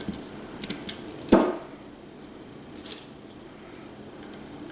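Metal clinks and clicks of hand tools and screws being worked on an old boiler pump's metal housing, with one louder clunk that rings briefly a little over a second in and a single sharp click near the three-second mark.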